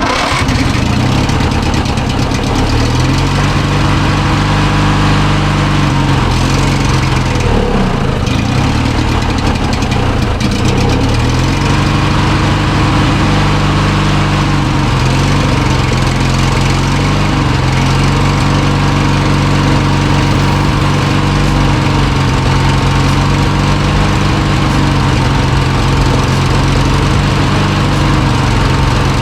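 Old Craftsman riding mower's 19.5 hp Briggs & Stratton engine running freshly after a tune-up and oil change. Its speed sags and recovers twice in the first dozen seconds, then settles into a fairly steady run with slight slow rises and falls in speed.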